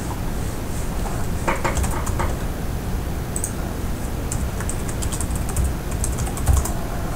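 Computer keyboard typing: a few keystrokes about a second and a half in, then a quick run of keystrokes from about four seconds in, over a steady low background rumble.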